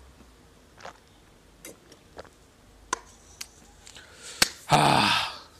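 Man drinking from a paper coffee cup: a few faint mouth clicks and small taps, then a sharp click and a loud breathy burst lasting about half a second near the end.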